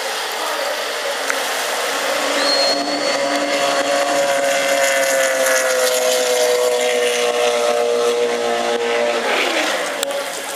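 Racing powerboat engine running at speed as the boat passes, its pitch sliding slowly down and then dropping more steeply as it goes by.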